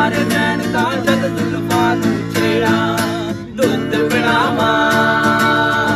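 Acoustic guitar strummed steadily under a man singing a Punjabi song, his voice wavering through the melody and then holding a long note. The strumming drops out briefly a little over three seconds in.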